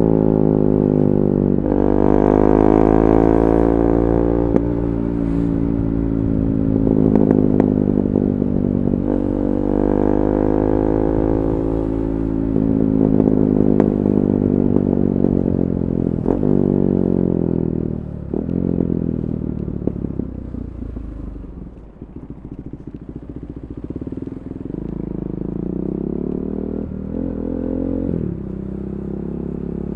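KTM 390 Duke's single-cylinder engine through an Akrapovic Moto2 slip-on exhaust with the catalytic converter removed, its pitch climbing several times in a row as it accelerates. It then drops off and quiets briefly a little past two-thirds of the way through, and settles to a lower, steadier note.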